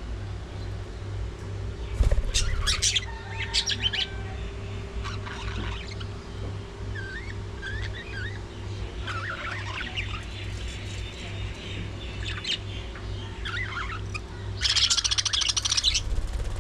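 Budgerigars chirping and squawking, scattered short calls with a loud harsh burst of chatter near the end, over a steady low hum.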